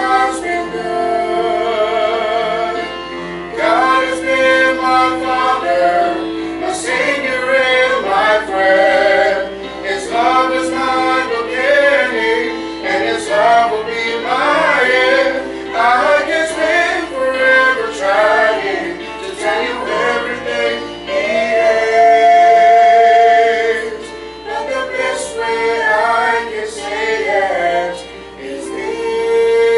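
A man and a woman singing a gospel song together as a duet, with instrumental accompaniment beneath. They hold several long notes with vibrato, the longest about two-thirds of the way through.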